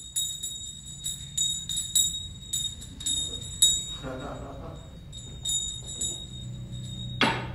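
A small bell rung over and over in quick, uneven strokes, about two or three a second, with a short break midway; the constant ringing is what summons someone downstairs. A sudden thud near the end.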